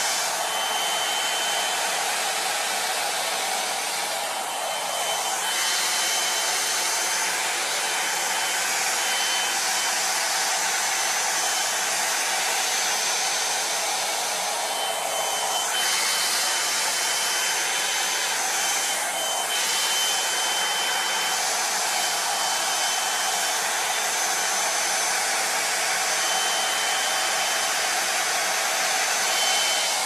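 Plavogue one-step hair dryer brush blowing hot air steadily while drying and styling the hair, with a thin high whine that comes and goes over the rush of air. The sound shifts briefly a few times as the brush works through the hair.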